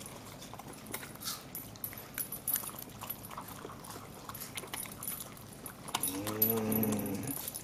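Dogs gulping ground beef and bacon from their bowls: scattered wet chewing and smacking clicks. A low drawn-out murmur is heard about six seconds in.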